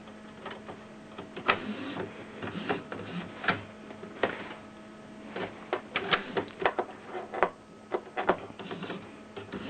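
Irregular plastic clicks and rattles from a Canon inkjet printer's cartridge carriage and tubing being handled and pushed by hand along the carriage rail, over a faint steady hum.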